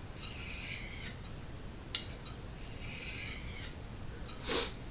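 Knife blade drawn slowly across a small sharpening stone: two slow scraping strokes about a second long each, with a light click between them. Near the end comes a short, louder rushing noise.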